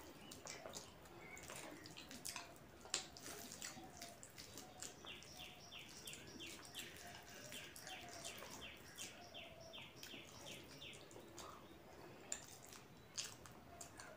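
Faint wet clicks and squishes of fingers mixing soft, starchy phena bhat (rice with its cooking starch) on a steel plate and of eating by hand. A bird calls in the background, with a run of quick repeated chirps through the middle.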